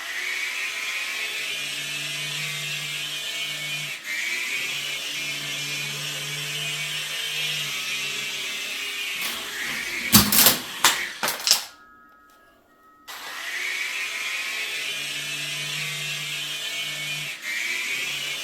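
Small electric motors of a toy RC helicopter whining steadily in flight, the pitch rising now and then with throttle. About ten seconds in come several sharp knocks, the motors cut out for about a second, then spin up again with a rising whine.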